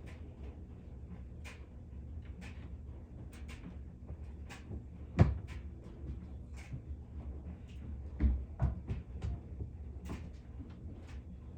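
Light clicks and knocks from soldering work by hand on a bench: one sharp knock about five seconds in, and a few more about three seconds later, over a low steady hum.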